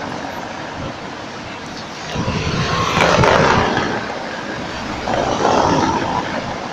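Tatra T3 tram set rolling slowly through a curved track junction, over a steady rumble of city traffic; the noise swells about two seconds in and again around five seconds.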